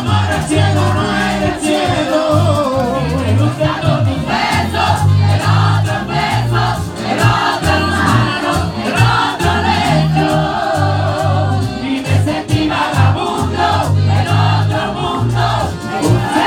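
Live merengue band playing with several voices singing together over a bass line of short, repeated notes.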